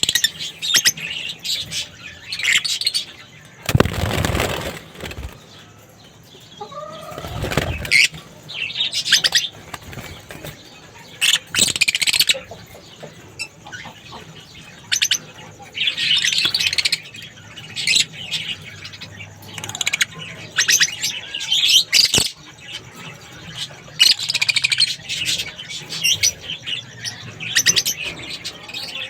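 Caged lovebirds chirping in short repeated bursts throughout, with two louder fluttering, rustling bursts of wings about four and seven seconds in.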